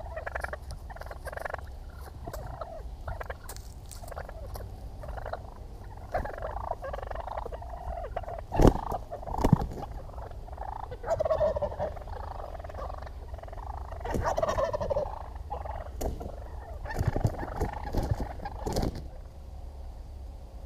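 Several wild turkey toms gobbling repeatedly, the gobbles overlapping at times and stopping near the end. Two sharp clicks come about halfway through, with a steady low rumble underneath.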